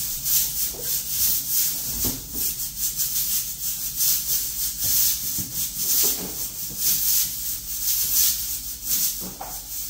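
Hands rubbing and working flour for dumpling dough in a bowl: a rhythmic, hissy scraping that repeats over and over.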